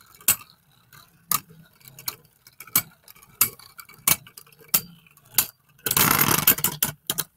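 Two spinning Beyblade tops clacking together in the stadium about every two-thirds of a second, one knocking against the other each time it comes round. About six seconds in comes a louder clattering scrape lasting about a second, then a few more knocks.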